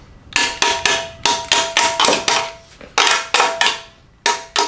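A hammer striking the steel exhaust system: about a dozen sharp metallic blows in quick groups of two or three, each leaving a clear ringing tone.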